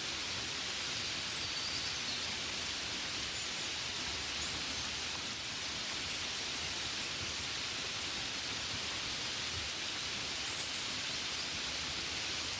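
Gentle, steady rain: an even hiss of many small drops with no single drop standing out.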